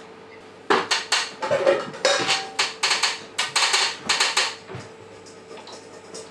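Curtain track fittings and spacers clicking and clattering as they are handled and fitted, a quick run of sharp knocks that stops about five seconds in.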